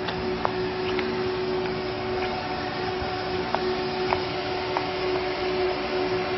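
Steady mechanical drone of solar dish Stirling engine-generators running, a hum with a few steady tones under a noisy rush, with scattered faint clicks.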